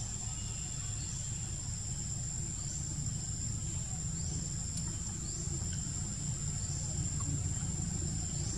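Outdoor insect chorus: a steady high-pitched insect drone, with a short rising chirp repeating about once a second, over a steady low rumble.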